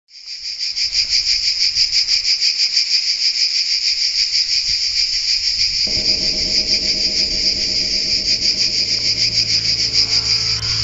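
Cicada singing: a loud, steady, rapidly pulsing high buzz that fades in at the start. Soft music with sustained tones comes in underneath about six seconds in.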